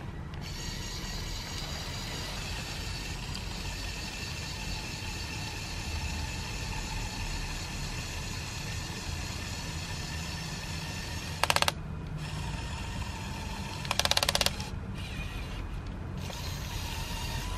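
The electric motors and plastic gearing of a remote-controlled Lego Technic Volvo L350F wheel loader whine steadily as it pushes through snow and raises its loaded bucket. Two short bursts of rapid clicking come about eleven and fourteen seconds in.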